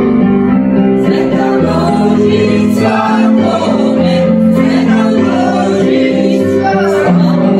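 A group of children singing a song together, accompanied by an electronic keyboard playing held chords.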